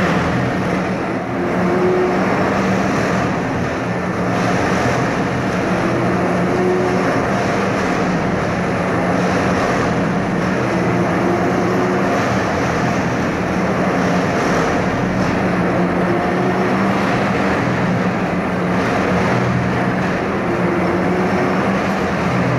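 Track maintenance machine working on the ballast, its engine and machinery running steadily with a low hum. A faint short higher tone recurs every two to three seconds.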